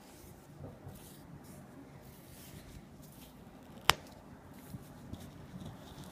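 Faint rustling and scratching of wool yarn and a sewing needle being handled and drawn through a rug's woven foundation during hand repair, with one sharp click about four seconds in.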